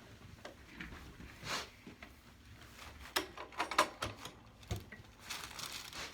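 A person turning over on a padded chiropractic treatment table: rustling and shifting with scattered knocks and creaks, a cluster of them about three seconds in and a soft thump a little later.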